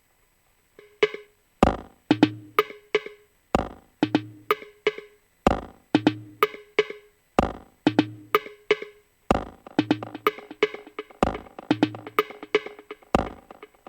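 Electronic dub techno drum pattern playing back from Maschine, starting about a second in: a deep kick about every two seconds with short pitched, woody percussion hits in between.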